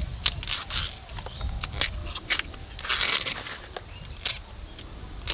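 Husk sheaths being peeled and torn off a fresh bamboo shoot by hand: irregular crackling snaps and short tearing rips, with a longer rip about three seconds in.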